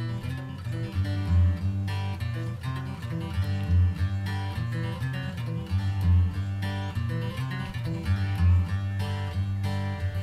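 Background music led by acoustic guitar, with a deep bass note landing about every two and a half seconds.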